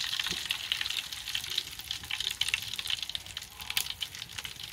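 Mustard seeds crackling and popping in hot groundnut oil, the tempering stage of a curry: a dense patter of sharp pops over a sizzle that thins out and grows quieter toward the end.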